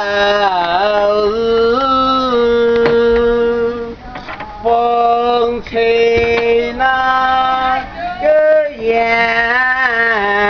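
The boat's rower singing unaccompanied, one voice holding long notes, with short breaks for breath about four seconds in and again near eight seconds.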